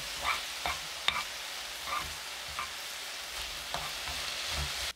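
Garlic scapes in soy sauce glaze sizzling in a frying pan while a wooden spatula stirs them, with a steady hiss broken by short scrapes and knocks of the spatula against the pan. The scapes are being stir-fried until the sauce cooks down and they are done.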